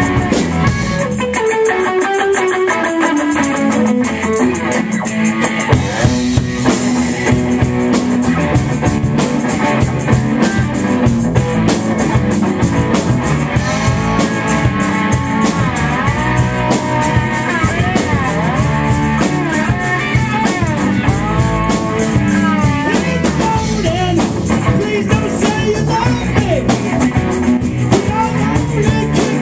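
Live rock band playing loud: electric guitars over a drum kit. A lead line slides down in pitch over the first few seconds, and pitched lines bend and waver through the middle.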